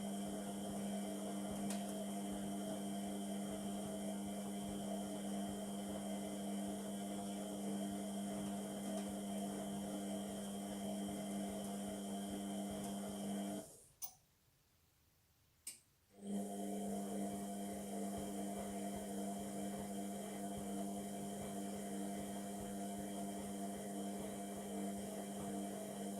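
Indesit MTWC71252WUK washing machine running a Cotton 30 wash, with a steady hum. The hum stops about halfway through, leaving two seconds of near silence broken by a click, then starts again.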